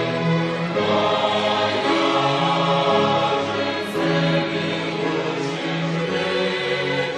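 Choir singing a slow hymn in long, held chords.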